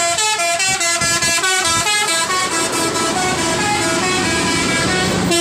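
A bus's telolet horn, a multi-tone musical horn, playing a tune: quick steps from note to note at first, then longer held notes.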